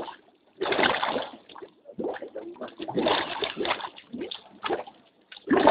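Gas-laden mud bubbling and splattering up around the pipe of an abandoned drilled well, in irregular surges of under a second each.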